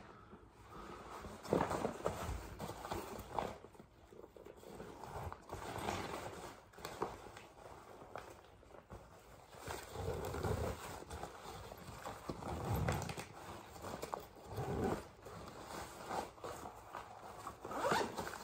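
Handling noises from a fishing backpack being packed with tackle: rustling and soft knocks and bumps at irregular intervals.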